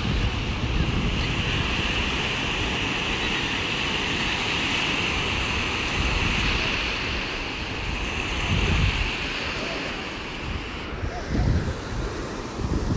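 Small sea waves breaking and washing up onto a sandy beach, a steady surf hiss, with wind buffeting the microphone in low rumbling gusts, strongest about two thirds of the way in and near the end.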